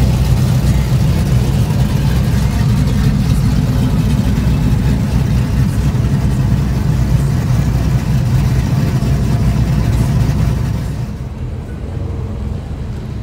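Deep, steady exhaust rumble of cars and trucks cruising slowly past at low speed. It drops somewhat in level a couple of seconds before the end.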